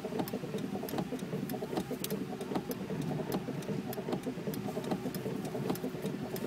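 Car engine idling, a steady low hum heard from inside the cabin, with irregular sharp ticks of heavy rain striking the roof and windscreen.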